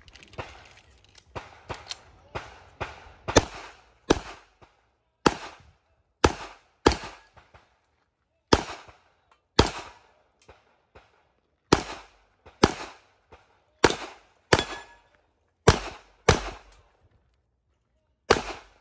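Pistol shots fired through a practical-shooting course of fire: about twenty sharp reports, many in quick pairs, with short pauses between strings as the shooter moves and switches targets.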